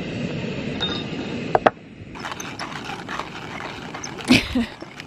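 Camp stove burner running with a steady rushing hiss, which stops after a couple of sharp clicks about a second and a half in. A few small knocks and one brief louder sound follow near the end.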